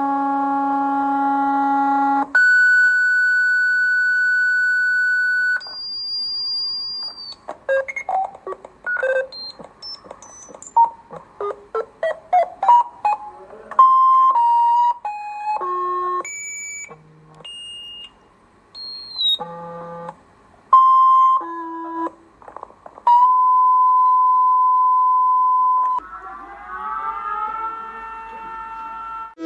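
Electronic emergency-alert tones in sequence: a buzzy tone, then long held high tones, then a rapid run of short beeps hopping up and down in pitch. About 23 seconds in comes a steady single tone lasting about three seconds, followed by several tones gliding upward together near the end.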